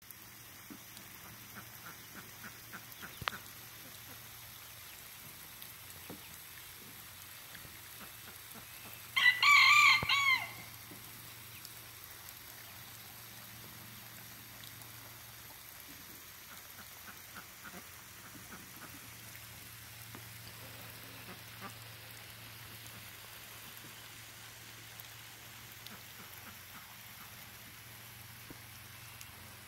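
A rooster crows once, about nine seconds in: a single loud call of about a second and a half. Otherwise only faint background with a low hum and a sharp click about three seconds in.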